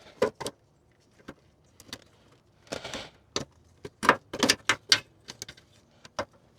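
Scattered sharp clicks and light rattles of small plastic and metal parts being handled at a car's headlight, busiest about four to five seconds in.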